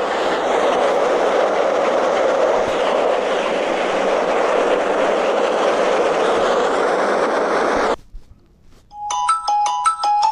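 A steady rushing noise runs for about eight seconds and cuts off suddenly. About a second later, a ringtone-like tune of quick, bright chiming notes begins.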